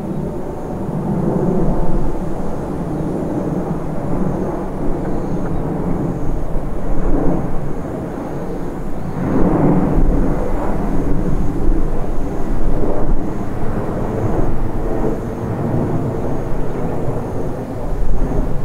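Airbus A380's four Rolls-Royce Trent 970 turbofans on final approach: a low, continuous jet rumble that swells to its loudest about halfway through.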